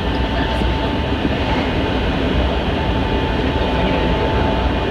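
Hankyu 7000-series electric train running at speed, heard from inside the carriage: a steady rumble of wheels and running gear with a thin steady whine above it.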